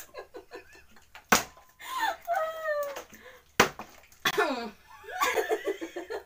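A partly filled plastic water bottle being flipped and hitting the tabletop twice, with a sharp knock about a second in and a louder one a little past three seconds, amid laughing and giggling.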